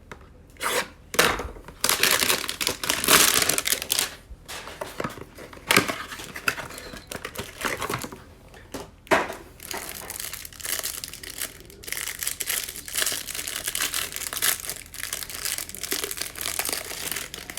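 Trading card packaging of a Mosaic football hanger box being torn open and handled, the plastic wrap crinkling in an irregular run of rustles and short rips.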